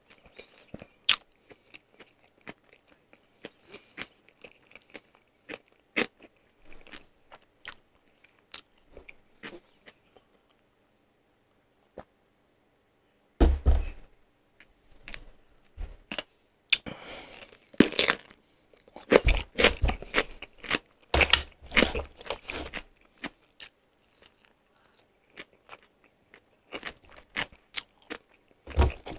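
Close-miked chewing of crispy fried chicken with mouth smacking and sharp little clicks. It is sparse at first, then turns into louder bouts of crunching from about halfway through.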